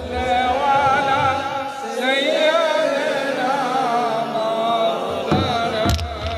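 A man's voice chanting an invocation through a microphone and loudspeaker, melodic and wavering, with long held notes. Two short clicks come near the end.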